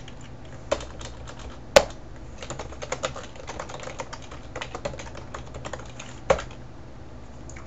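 Computer keyboard typing in irregular runs of key clicks, with a few louder single key strikes, the loudest nearly two seconds in. The typing stops about six and a half seconds in.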